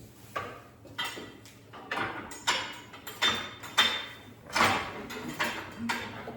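Irregular metal clanks and knocks, about ten over six seconds, some with a short metallic ring, as heavy steel parts strike each other while an engine is worked into the engine bay.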